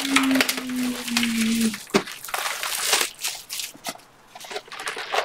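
A man's long, drawn-out shout of a name, falling slowly in pitch and ending about two seconds in, then crinkling and rustling as trading cards and wrappers are handled.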